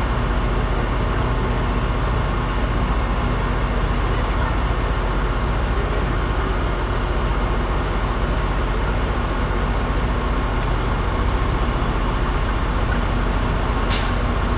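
Steady low hum and rumble of vehicle engines and road traffic, with one brief sharp click near the end.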